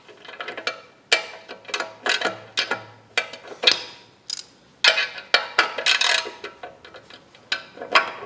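Sharp metallic clicks and knocks, irregular and sometimes in quick runs, from a hand wrench working at a stuck bolt on a steel plow.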